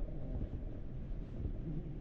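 Creek water rushing and gurgling over rocks, a steady low rumble with wind buffeting the microphone.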